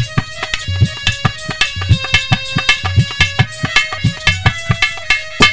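Instrumental interlude: a harmonium playing a melody of held notes over a quick, steady hand-drum rhythm with deep bass strokes.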